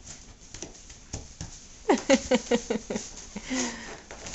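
A person's voice making a quick run of about seven short pitched sounds, about two seconds in, after a few soft taps.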